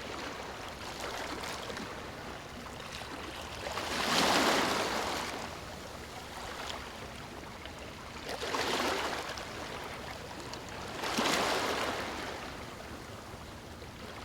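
Rushing water with three louder surges, like waves washing in.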